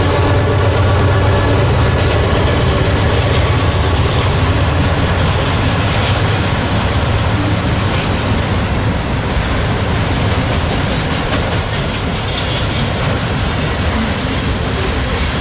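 Freight cars of a long Canadian Pacific manifest train rolling past, a loud steady noise of steel wheels on rail. A thin, high wheel squeal comes in about ten seconds in and lasts a couple of seconds.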